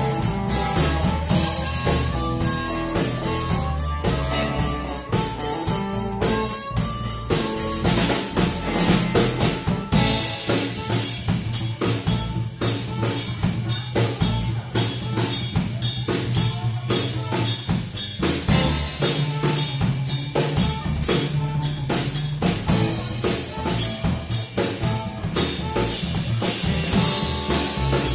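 Live blues band with drum kit, upright bass, electric guitars and harmonica playing an instrumental stretch with no singing, the drums keeping a steady beat.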